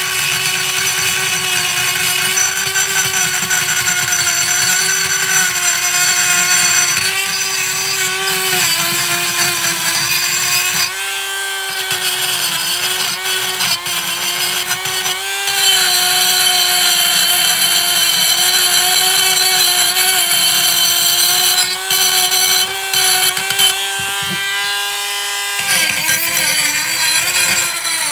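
Dremel rotary tool running at high speed against a rusty steel brake caliper bracket, with a steady high whine over a gritty scraping as the rust buildup is ground off. The whine sags in pitch when the tool is pressed into the metal and recovers when it is eased off, and the scraping stops for short moments as the tool lifts away.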